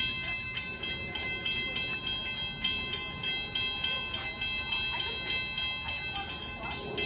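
Railroad grade-crossing warning bell ringing in rapid, evenly spaced strikes while the crossing gates come down, signalling an approaching train.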